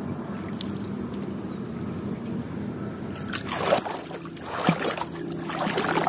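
Small boat moving across still water, with a steady low hum throughout; from about halfway through, water sloshes and splashes a few times at the hull.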